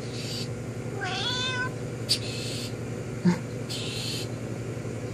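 A cat gives one drawn-out meow about a second in, its pitch rising and then holding, calling to another cat. A sharp click follows about two seconds in, and just after three seconds comes a short knock, the loudest sound here.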